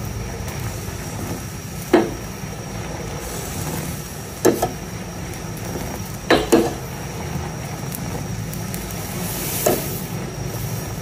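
A steel saucepan of liquid at a rolling boil on a gas burner, with steady bubbling and burner noise. A steel ladle stirs it and clinks sharply against the pot a handful of times, two of the clinks in quick succession about six seconds in.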